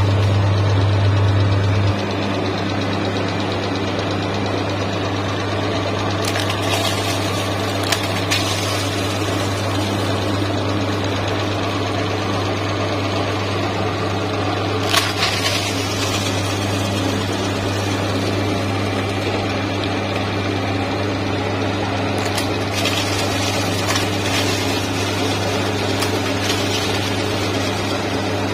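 Electric meat grinder's motor running with a steady low hum, which drops a little in level about two seconds in. A few short crunches sound as chocolate wafer rolls and Oreo cookies are fed in and ground through the auger.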